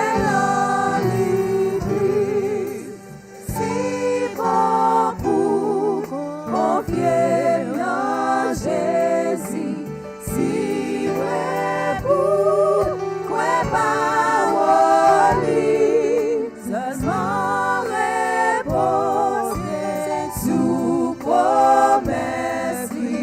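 Gospel worship singing with vibrato over instrumental accompaniment.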